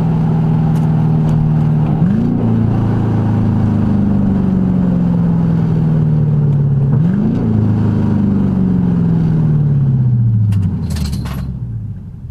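Lexus LS400's 1UZ V8 running loud through an incomplete exhaust, heard from inside the car. Its note jumps up twice, about five seconds apart, and each time drops slowly as the car slows, like manual downshifts while coming off the highway. Near the end it goes quieter and there are a few clicks.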